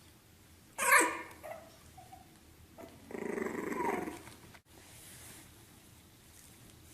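A dog gives one sharp bark about a second in, then a longer growling grumble of about a second starting around three seconds in.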